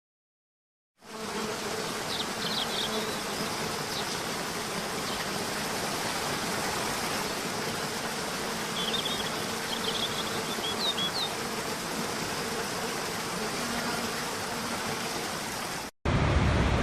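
Steady, even rushing of a waterfall, starting abruptly about a second in. A few short high chirps come twice over it. Near the end it cuts to a louder, deeper rushing.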